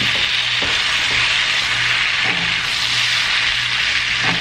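Butter and minced garlic sizzling in a frying pan: a loud, steady frying hiss, with a spatula starting to stir the pan near the end.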